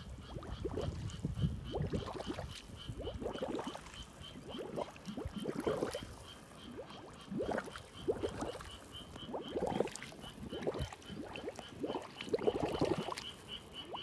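Shallow water gurgling and rippling as it runs across a flooded field, with uneven bubbling pulses that are the loudest sound. Behind it a steady, high, rapid pulsing call repeats a little over three times a second.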